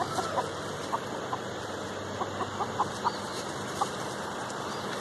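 Chickens clucking: about a dozen short, separate clucks spread over the first four seconds, over a steady background hiss.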